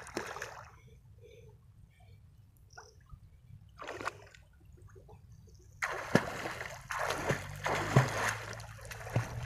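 Water splashing and sloshing as a cast net is worked by hand in shallow water: a couple of short splashes, then continuous splashing with a few knocks for the last three and a half seconds.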